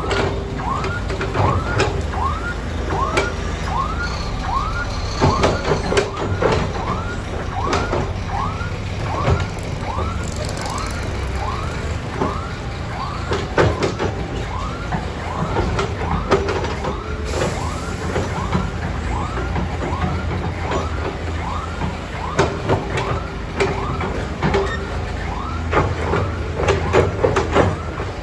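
A heavy diesel machine running steadily, with scattered knocks and clanks. Over it a vehicle's electronic warning alarm chirps on and on, a short rising chirp repeating about every three-quarters of a second.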